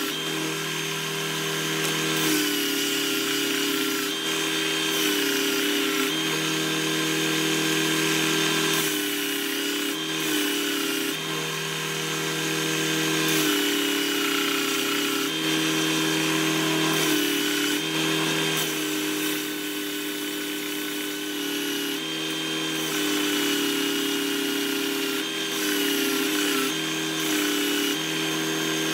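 Bench belt sander running as a small wooden dovetail box is pressed onto the belt and sanded. The motor hum dips and recovers every second or two as the box is pushed on and lifted, over the rasp of the belt on the wood.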